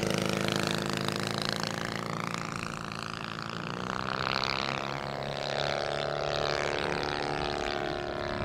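Large radio-controlled model P-51 Mustang racer's motor and propeller running steadily as it taxis on grass. The note rises a little about four seconds in, then holds.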